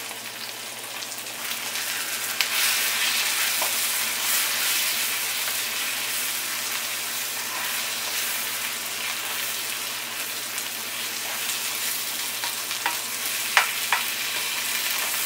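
Brinjals, onion and tomato coated in spice powders sizzling in hot oil in a nonstick kadai while a wooden spatula stirs them. The sizzle swells about two seconds in and stays steady, with a few sharp clicks near the end.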